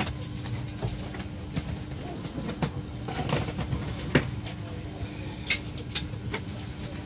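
Railway station ambience: a steady low rumble and faint hum, with scattered sharp clicks and knocks.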